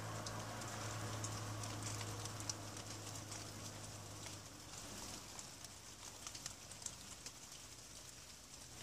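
Light rain falling, with scattered irregular drips and patters over a soft hiss. A low steady hum runs underneath and fades out about halfway through.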